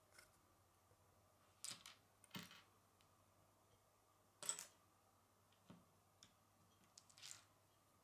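Plastic Lego bricks being handled and pressed onto a small brick-built bird: about half a dozen short clicks and scrapes, the loudest about halfway through.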